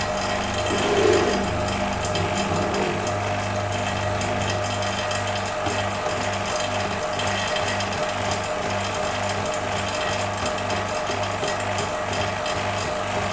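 Electric vacuum pump running steadily with a low hum, pulling liquid through the filter during a vacuum filtration.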